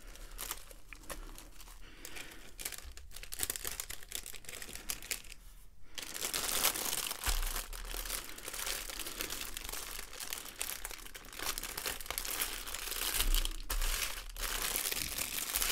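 Clear plastic bags crinkling as small zip-lock bags of diamond-painting drills are handled and slid into a long plastic sleeve, which is then pressed flat. The crinkling is light and scattered at first and gets busier about six seconds in.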